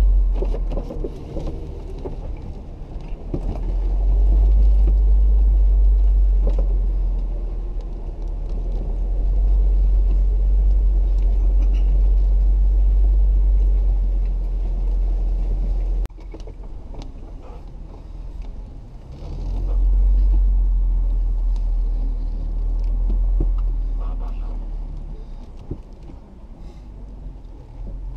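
Jeep Wrangler JK driving a rough dirt trail: a low rumble from the engine and drivetrain that swells and eases several times, dropping off suddenly about halfway, with a few scattered light knocks.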